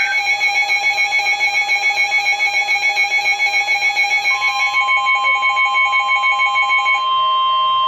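Electronic emergency-alert warning tones. A multi-tone alarm pulses about six times a second, and about four seconds in a steady single tone joins it. The steady tone carries on alone once the pulsing stops near the end.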